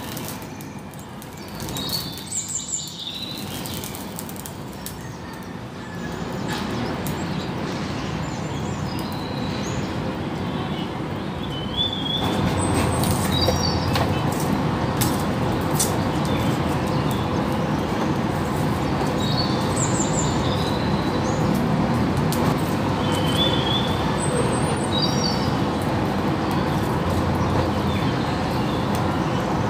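Small birds chirping in short, high calls over a steady rushing background noise that gets louder about twelve seconds in, with occasional light clinks of charcoal lumps being shifted with tongs.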